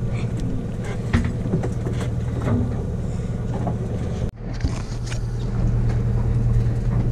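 A fishing boat's engine running with a steady low hum, with scattered light clicks and knocks over it. The sound cuts out for an instant about four seconds in.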